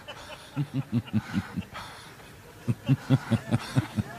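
A man's laughter in short, evenly spaced pulses, about five a second, in two bouts of roughly a second each.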